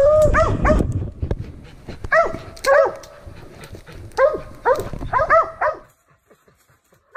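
Mountain curs barking treed at a raccoon: quick barks in clusters of three or four, each cluster a second or two apart. Rustling from someone pushing through brush underlies the first second, and the barking stops about six seconds in.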